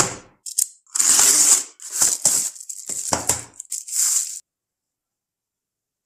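Paper mailer envelope being torn open and rustled, along with crinkling plastic packaging. A string of tearing and rustling bursts stops abruptly a little past four seconds in.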